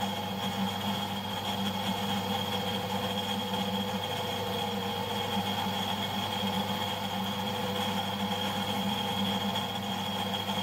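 Steady machine hum from a metal lathe whose spindle is stopped while its coolant pump keeps running; several fixed tones hold without change.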